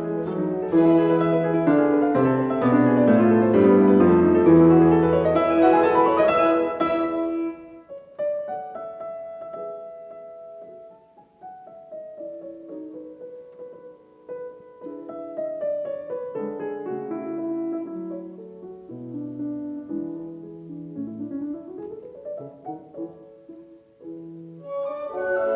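Background piano music: busy and full for the first several seconds, then softer, sparser melodic phrases, swelling again near the end.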